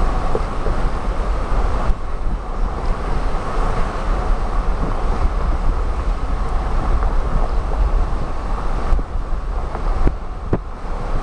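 Steady road and engine noise of a car driving slowly, heard from inside with wind rumbling on the microphone. A few light knocks come near the end.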